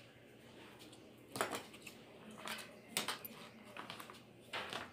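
A handful of short, light clatters and clinks of tableware being handled: a spoon, a bowl and plates moved on a table.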